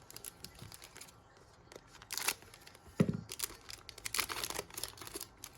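Football trading cards being handled and flipped through: dry sliding and flicking of card stock in irregular bursts, with a single knock about three seconds in.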